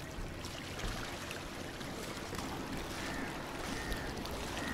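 Steady wash of small waves on a rocky shore, with wind rumbling on the microphone.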